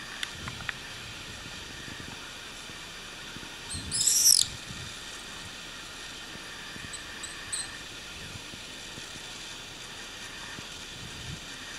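Swallows calling in flight: one loud, shrill cry sliding down in pitch about four seconds in, lasting about half a second, and a few faint high chirps just before it and again about seven seconds in, over a steady background hiss.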